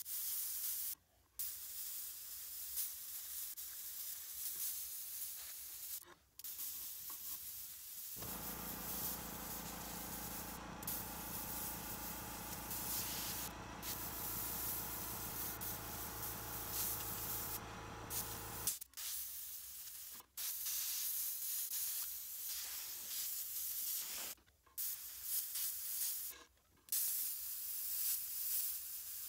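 Airbrush spraying paint in a steady hiss, broken by short pauses every few seconds as the trigger is let off. A lower steady hum joins from about eight seconds in until about nineteen seconds.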